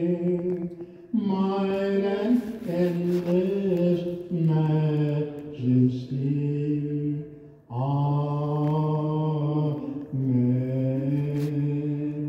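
A single voice sings a slow liturgical chant in long held notes, phrase after phrase, with short breaks for breath between them.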